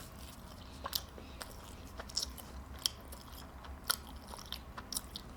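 Close-miked chewing of a Southwest crunch wrap: soft, irregular crunches and wet mouth clicks about once or twice a second.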